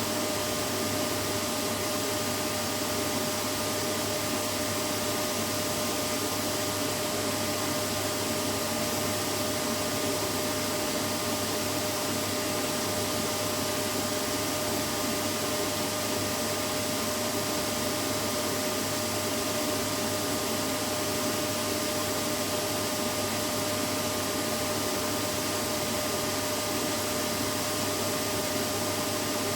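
Vacuum cleaner running steadily, an unbroken motor whine over a constant rush of air, with no change in pitch or level.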